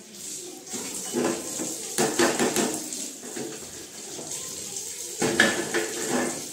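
Kitchen tap running into a stainless steel sink while dishes are rinsed. A tray and tea cups clink and clatter against the sink about a second in, around two seconds, and again just past five seconds.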